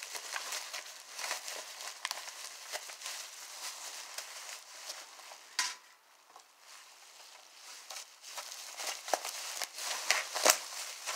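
Packing material rustling and crinkling as it is handled while items are unwrapped, with a few sharp clicks, the loudest about halfway through and a couple more near the end.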